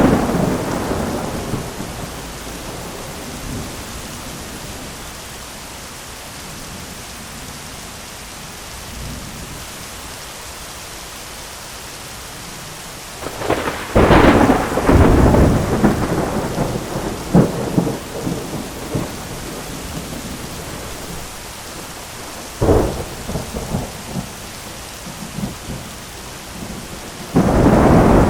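Heavy rain falling steadily on an umbrella, with thunder: a long crackling roll begins about halfway through and lasts several seconds, a shorter sharp clap follows a few seconds later, and another peal starts near the end.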